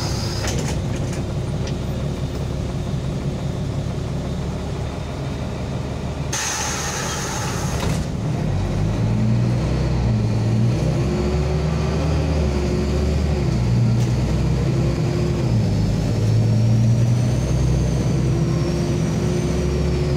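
Interior noise of a LAZ city bus. A short pneumatic hiss comes about six seconds in. From about eight seconds the diesel engine pulls harder and gets louder, its note rising and falling a few times as the bus accelerates.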